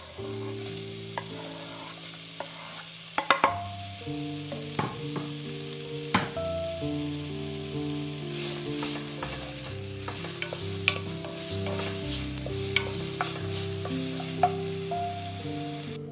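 Diced onion sizzling steadily in hot oil in an enamelled cast-iron pot as it is stirred, with a few sharp knocks, the loudest about three seconds in.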